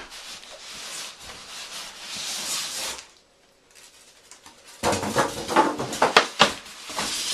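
Polystyrene packing and cardboard box rubbing and scraping as a boxed computer case is pulled out. After a short pause, a run of sharp knocks and rattles follows as the case and its packing are handled.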